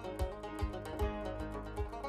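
Folk band music: a fast picked banjo melody over a steady low drum beat, about two and a half beats a second.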